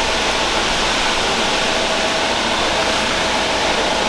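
Steady, even mechanical rushing noise with a faint hum, like a motor or machine running without change.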